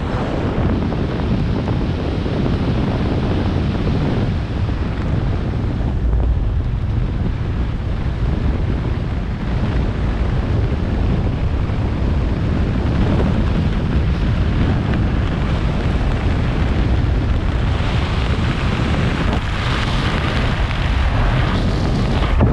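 Freefall wind rushing over a skydiver's camera microphone: a loud, steady roar of air buffeting the mic.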